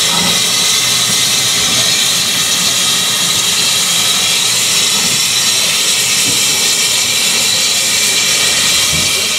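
Steady, loud hiss of steam from an LSWR M7 class 0-4-4 tank locomotive.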